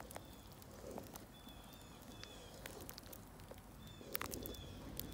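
Quiet stirring of thick, simmering chili with a wooden spoon in a cast-iron Dutch oven, with a few faint clicks.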